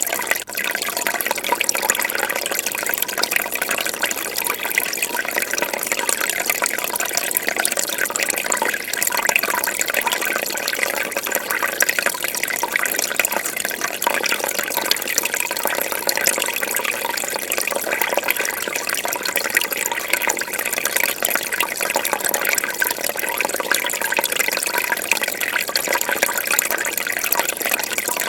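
Fish tank water bubbling and splashing steadily, a dense, even trickle made of many small crackles.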